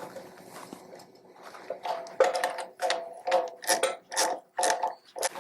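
Metal hand tools working on a small generator's carburetor: a run of about eight short metallic clicks and rattles, roughly two a second, starting about two seconds in.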